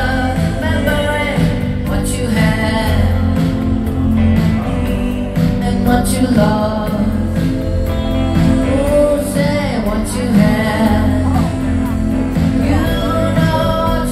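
Live rock band playing with a lead singer over a steady bass and drum groove, heard through the concert PA.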